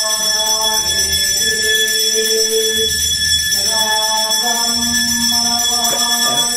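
A temple bell rung without pause during the aarati makes a steady high ringing throughout. Under it, a voice sings a devotional song in sustained, changing notes.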